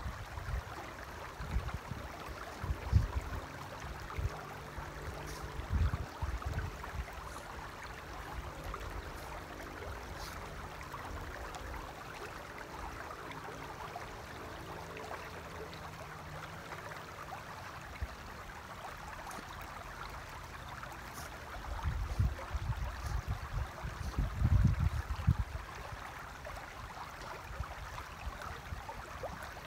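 Shallow river flowing over stones, a steady rushing babble. Low rumbling gusts of wind on the microphone come in bouts during the first few seconds and again about three-quarters of the way through, and are the loudest moments.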